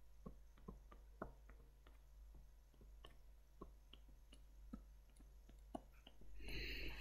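Near silence with faint, irregular clicks of a stylus tapping a touchscreen as dots are drawn, and a short soft hiss near the end.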